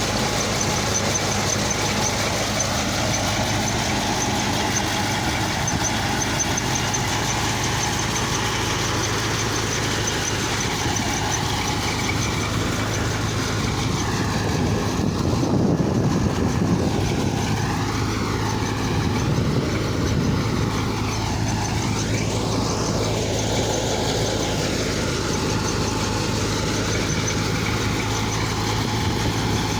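Engine running steadily at a constant pitch, with a low even hum. Some wavering higher tones come and go through the middle stretch.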